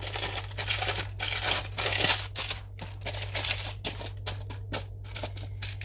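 Baking-paper liner crinkling and rustling in quick bursts as dough is pressed into a paper-lined tin by hand. The rustling is busiest about two seconds in, over a steady low hum.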